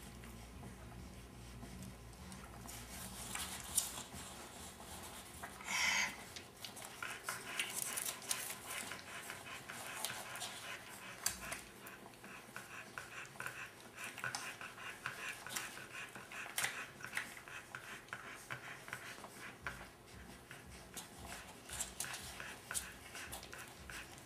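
Three-week-old border collie puppies suckling at their mother: soft wet smacking and many small clicks, with one short louder noise about six seconds in.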